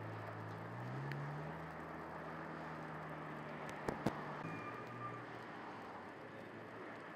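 Semi truck cab fire burning with a steady rushing noise, over a vehicle engine running with a low hum that rises in pitch about a second in. Two sharp pops about four seconds in, from something bursting in the fire.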